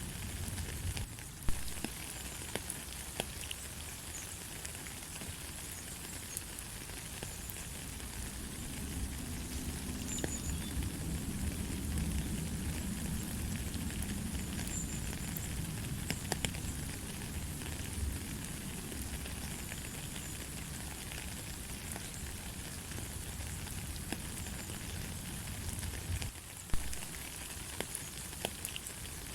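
Light, steady rain pattering, with many separate drops ticking through it. A low rumble swells through the middle, and two sharper knocks of heavier drops stand out, one about a second and a half in and one near the end.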